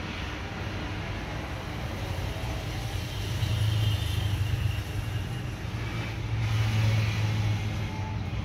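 Low steady rumble with a hiss over it, swelling twice, about three and a half seconds in and again about seven seconds in, like a vehicle passing.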